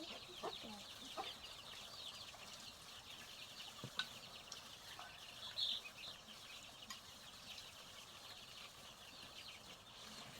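Chickens peeping: a faint, continuous stream of many short, falling cheeps overlapping one another. There is a single knock about four seconds in.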